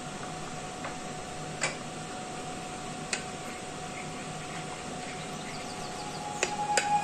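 A metal spoon stirring a paste in a ceramic bowl, with a few light clicks as the spoon knocks the bowl: one about one and a half seconds in, one about three seconds in, and two near the end. A steady low hum runs underneath.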